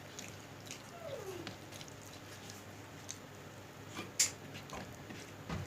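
A cat's single short cry, falling in pitch, about a second in, then a sharp click about four seconds in.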